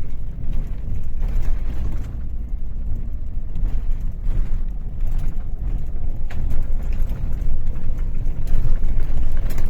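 Scania K400 bus's six-cylinder diesel engine running with a steady low rumble, with a few light clicks over it.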